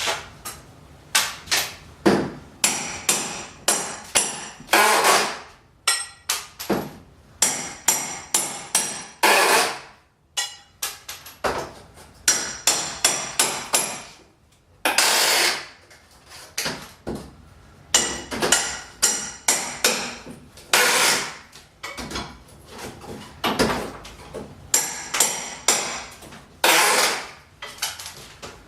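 Claw hammer driving nails: quick runs of sharp strikes, several a second, with a metallic ring on each blow. Between the runs come several longer harsh sounds of about a second each.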